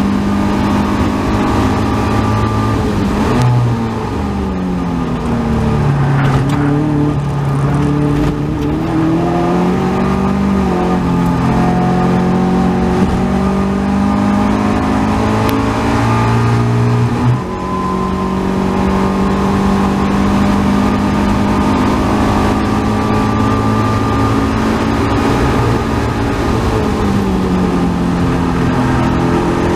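Caterham Seven 270R's Ford Sigma four-cylinder engine at racing load, heard from the open cockpit. The engine note drops about three and a half seconds in as the car slows for a corner, then climbs and bends through the revs, breaks sharply about seventeen seconds in, and falls again near the end.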